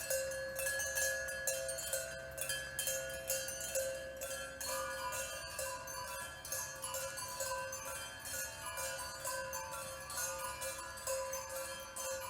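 Bells jingling and chiming: a dense, continuous run of rapid metallic strikes over several held ringing tones, with a new set of tones coming in about four and a half seconds in.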